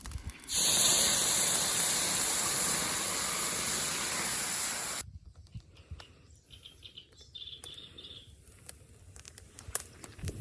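Hot frying pan sizzling loudly, a steady hiss that begins suddenly and ends abruptly about five seconds in. A few faint crackles and clicks follow.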